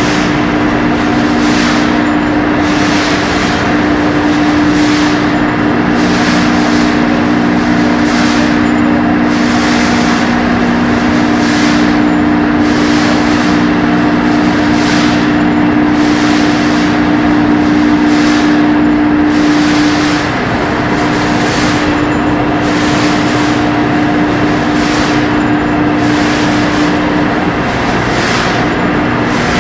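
Running machinery in a tanker ship's pump room: a loud, steady mechanical drone with a hum of two close tones and a hiss that pulses about once a second.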